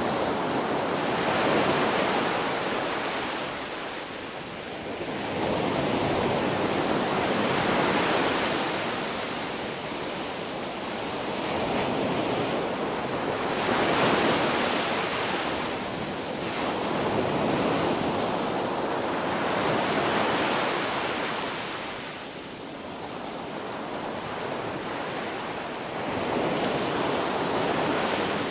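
Ocean waves breaking on a beach: a continuous wash of surf that swells and ebbs every few seconds as successive waves crash and draw back.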